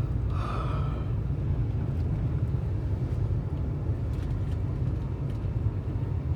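Steady low rumble of a Pendolino electric train running at speed, heard from inside the carriage.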